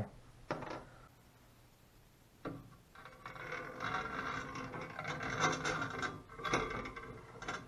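A threaded steel lead screw being slid into the end of a CNC machine's aluminium X-axis gantry, its threads rubbing and scraping against the metal. Two light knocks of parts being handled come first.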